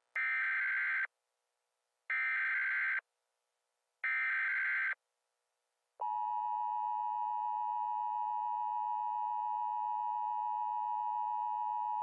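Emergency Alert System tones: three one-second bursts of SAME digital header data, a second apart, then about six seconds in the steady two-tone EAS attention signal starts and holds.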